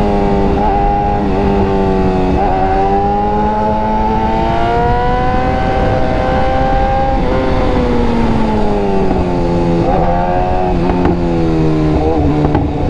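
BMW S1000RR inline-four sportbike engine through an SC Project exhaust, pulling under load at highway speed: the note breaks briefly a few times near the start, climbs steadily for several seconds, then drops in steps near the end as the bike slows, with wind rumble underneath.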